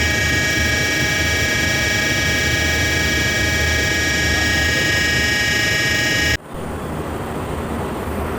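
VFD-driven pump motor running with a loud, steady whine made of several fixed tones over a low hum: the abnormal motor noise. It cuts off abruptly about six seconds in, and a quieter, rougher machine noise carries on.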